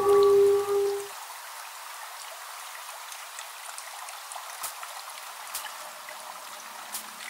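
Steady musical tones cut off about a second in, leaving a thin, even hiss of swimming-pool water with a few scattered sharp drip-like clicks.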